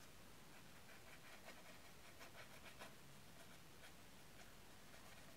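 Faint, rapid scratchy taps of a tiny paintbrush dabbing powder onto a miniature cake's surface, thickest in the first half.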